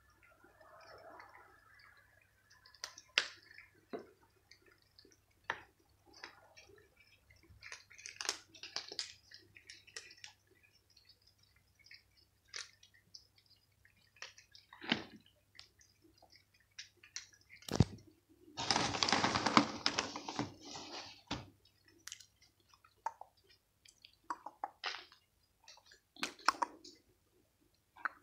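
Cats crunching dry kibble off a paved floor: scattered irregular clicks and crackles. A louder rustling stretch lasts about three seconds just past the middle.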